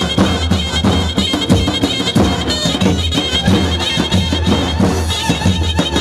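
Kurdish halay dance music played loud: a shrill, reedy wind-instrument melody over a steady drum beat.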